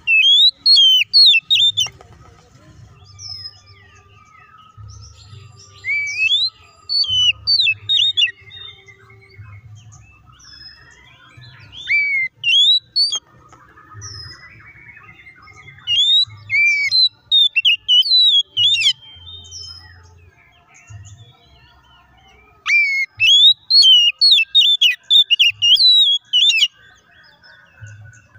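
Oriental magpie-robin (kacer) singing in five loud phrases of fast whistled notes that sweep sharply up and down, with pauses of a few seconds between them.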